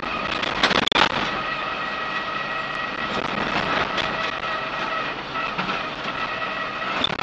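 Land Rover Series 3 109 breakdown truck on the move, heard from inside the cab: engine and drivetrain running with a steady whine, and a clatter about a second in.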